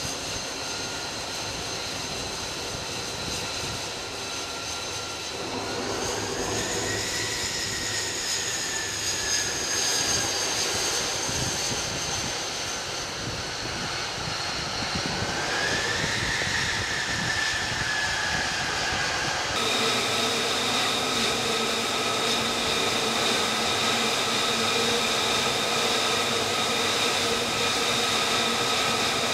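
F-35C's F135 jet engine whining steadily at low power, with a stack of steady tones. Twice the whine rises in pitch and sinks back. About two-thirds of the way through it changes abruptly to a different steady whine.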